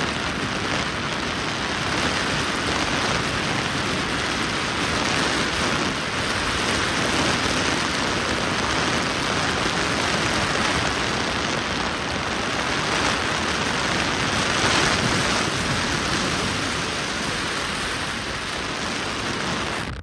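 Steady rushing of wind and road noise from a moving car, a loud, even hiss with no let-up.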